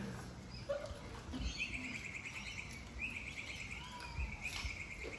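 High, rapid chirping trills in three short runs, starting about a second and a half in, with a few soft clinks of cutlery on plates from people eating.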